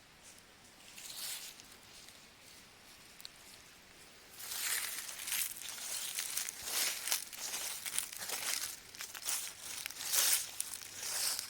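Dry autumn leaves rustling and crackling in uneven surges, starting about four seconds in after a quieter stretch.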